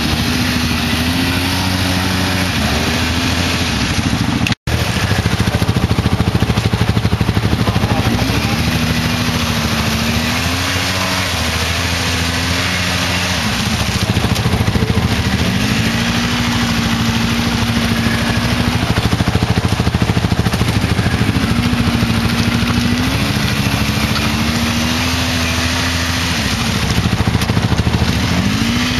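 Quad bike (ATV) engines revving under load in deep mud: the pitch rises and is held for a few seconds, then falls, about five times over a steady engine drone. The sound cuts out for an instant about four and a half seconds in.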